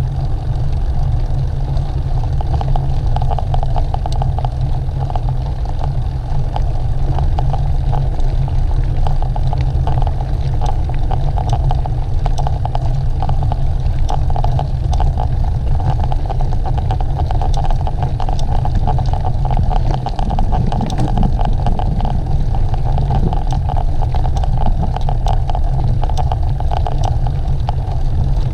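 Wind buffeting the microphone of a camera carried on a moving bicycle, a steady heavy rumble, with the hum of tyres rolling and many small clicks and rattles from the bike.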